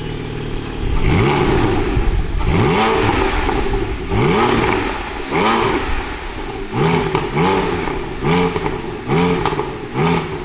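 Porsche 718 Cayman GT4's flat-six engine blipped repeatedly from idle in short revs, a few spaced out at first, then coming about once a second over the last few seconds.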